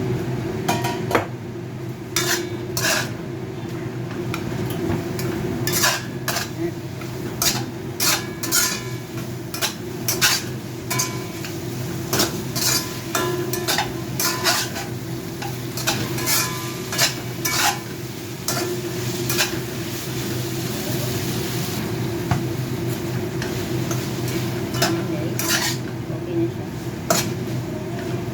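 A spatula clanking and scraping against a frying pan at irregular intervals as chicken legs and onion are stir-fried, with food sizzling and a steady low hum underneath. The sizzling swells briefly about two-thirds of the way through.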